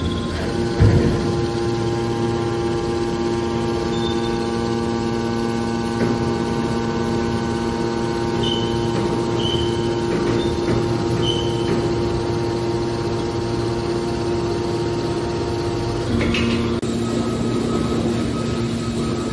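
Hydraulic scrap-can baler's electric motor and pump running with a steady hum, with a single knock about a second in. About sixteen seconds in, the hum changes pitch as the machine's load shifts.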